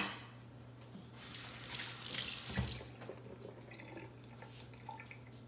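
Kitchen tap water running briefly into a stainless steel bowl of chicken in the sink, for about a second and a half, starting about a second in. It opens with a sharp metal clank, and a few faint clinks follow near the end.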